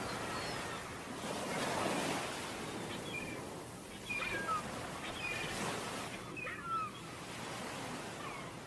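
Ocean waves washing on a beach, swelling and falling back twice. Short, high chirping calls sound over the surf throughout.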